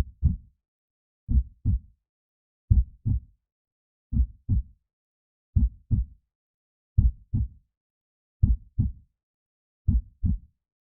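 Heartbeat sounds: a slow, even double thump (lub-dub), about one pair every second and a half, eight pairs in all, with silence between the beats.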